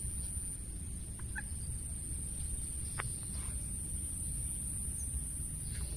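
Outdoor field ambience: a steady high-pitched insect drone over a low rumble, with a few faint short calls about a second and a half and three seconds in.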